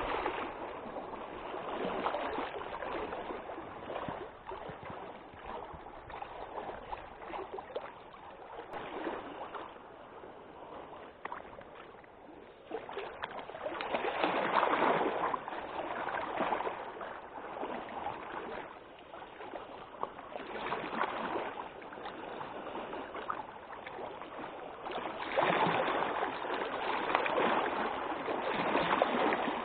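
Wind and choppy lake water: a rushing noise that swells and eases in gusts every few seconds, with stronger surges about halfway through and near the end.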